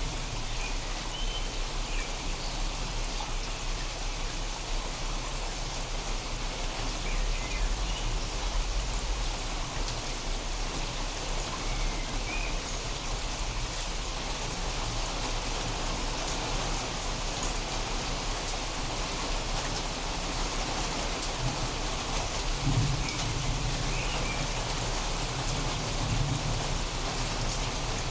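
Steady rain falling during a storm, with brief low rumbles about two-thirds of the way in and again near the end that fit distant thunder.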